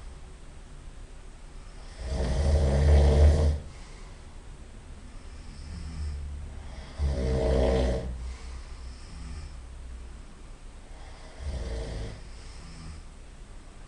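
A person snoring in sleep: three long snores, about four to five seconds apart, each lasting a second or more. The first, about two seconds in, is the loudest, with quieter breathing between the snores.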